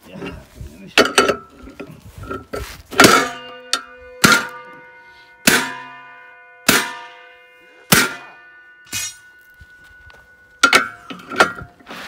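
Repeated metal-on-metal blows on the gang bolt and nut of an International Harvester 480 disc harrow as the gang is tightened, roughly one strike a second. Each blow leaves the steel disc blades ringing like a bell for a moment.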